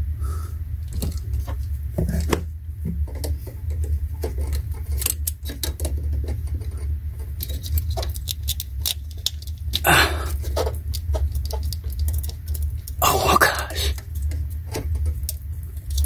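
Steel slip-joint pliers clicking, scraping and rattling against the tight plastic wiring connector of a Prius electric coolant heater pump as it is pried loose, with two louder bursts of rattling about ten and thirteen seconds in. A steady low hum runs underneath.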